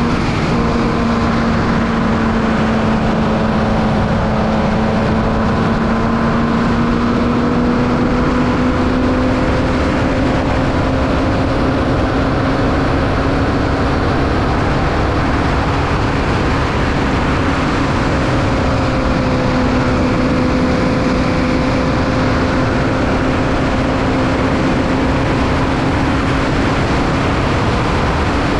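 A Formula Vee's 1200cc air-cooled Volkswagen flat-four engine running under load, heard onboard. Its pitch climbs slowly over the first dozen seconds and then holds nearly steady under a constant rush of noise.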